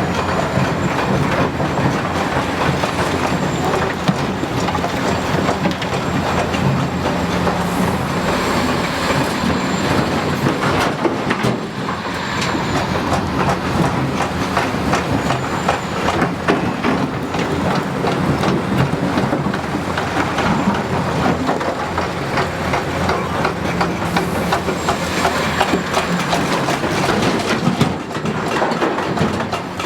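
Hitachi 330 hydraulic excavator working, its diesel engine running steadily under load while rock and steel clank and rattle continually.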